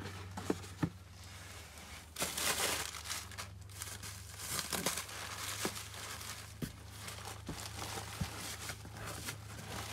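Plastic packing crinkling and rustling as a hand rummages through bubble wrap and air pillows in a cardboard box, loudest about two seconds in, with a few small sharp clicks.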